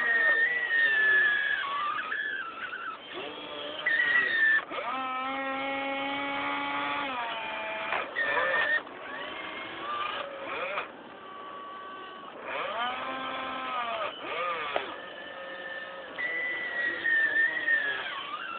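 Radio-controlled excavator's motors whining. The pitch holds steady for stretches of a second or two, then slides up or down as the machine changes speed, several times over.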